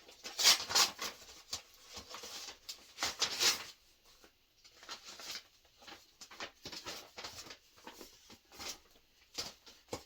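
Crinkling and rustling of paper and plastic sample packets and coupons being handled, in irregular crackles and clicks, busiest in the first few seconds and sparser after.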